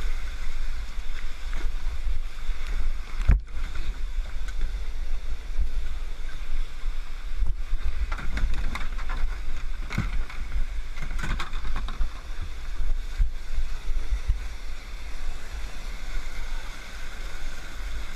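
Whitewater rapids rushing steadily, heard from a kayak, with a heavy low rumble and a few sharp knocks scattered through it.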